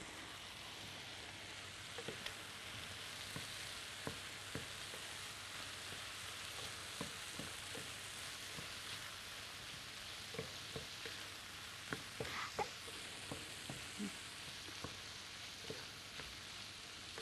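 Chopped peppers in a pan of filling sizzling steadily over the heat, with frequent light clicks as the mixture is stirred.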